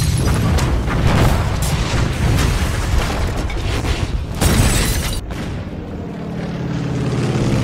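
War sound effects from the show's soundtrack: a continuous low rumble of booms and explosions, with a loud blast about four and a half seconds in. After the blast it gives way to a low steady drone that swells toward the end.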